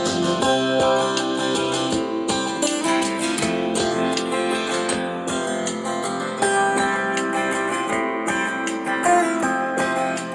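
Guitar music, mostly acoustic and strummed, played back through the Fiero Squad P160 portable speaker during a sound test.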